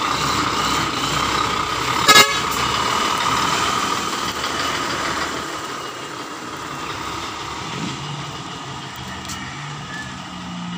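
Isuzu heavy truck's diesel engine running at idle, a steady drone with a high whine. A sharp click about two seconds in, and the sound eases a little in the second half.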